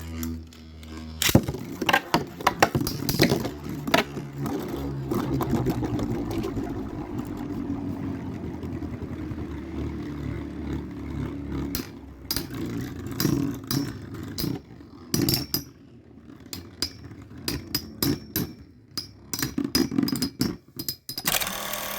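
Two Beyblade spinning tops with metal wheels, Storm Pegasis 105RF and Earth Aquila 145WD, launched with a sharp click about a second in, then whirring and scraping around the stadium. Repeated sharp clashes come as they collide, more of them in the second half.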